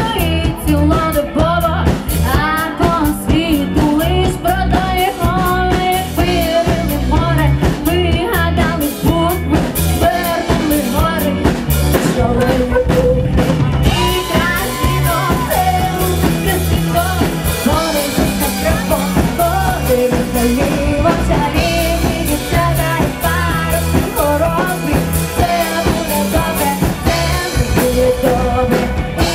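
A live rock band playing a song, with drum kit, guitars and singing over an amplified sound system.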